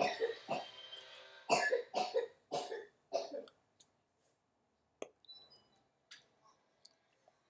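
A man's short, non-speech vocal bursts and breaths, about five in the first three and a half seconds, followed by a few faint clicks.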